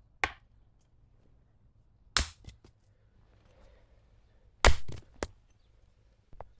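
Arrows shot from a Samick Sage takedown recurve bow, the string releases and the arrows thudding into a target bag: a string of sharp knocks, some coming in quick pairs, the loudest about halfway through.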